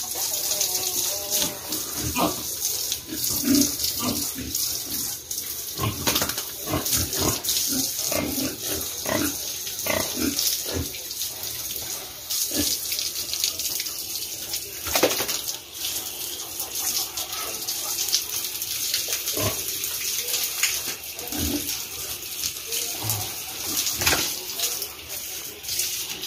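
Water spraying hard from a garden hose onto pigs and a wet concrete pen floor, a steady hiss, with young fattener pigs grunting now and then over it.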